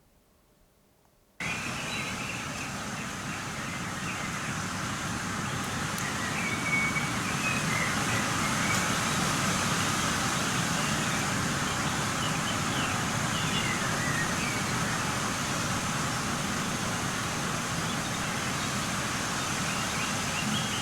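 Outdoor field recording of a wind gust building to around 25 mph: a dense, even rush of wind noise through tree foliage that starts about a second and a half in and drowns out most birdsong. Blackbirds and song thrushes are only just audible as faint calls above the wind.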